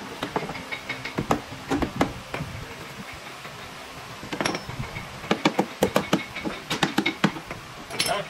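Irregular sharp knocks and taps of carpentry work on wood, coming in uneven runs, with a quieter spell about three seconds in and then a dense run of knocks.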